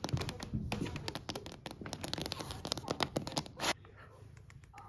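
Fingernails scratching and tapping quickly on a wooden parquet floor to play with a cat, a dense run of scratchy clicks that stops abruptly about three-quarters of the way through.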